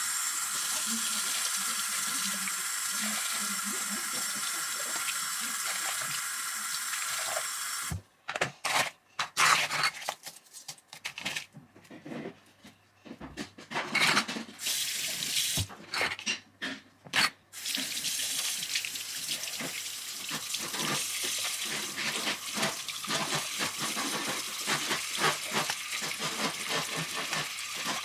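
Bathroom sink tap running, water pouring into a plastic cup and splashing into the washbasin. About eight seconds in, the flow breaks into short bursts and splashes with gaps for some ten seconds, then runs steadily again.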